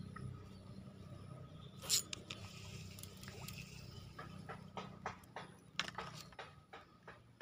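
Fishing rod and reel being handled during a recast: one sharp click about two seconds in, a short rush, then a run of small irregular clicks, over a steady low hum.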